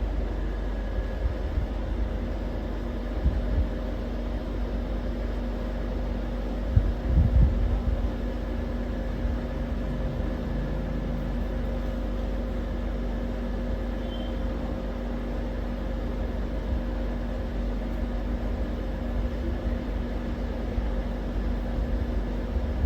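Steady mechanical hum with low rumble, with a few low thumps about seven seconds in.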